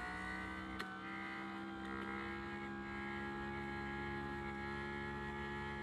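A Mercedes W116 electric window motor, fitted with the large front-door cog of a W123, running on the bench with a steady electric hum and a single click about a second in. It runs strongly and evenly, a far more functional motor than the failing original.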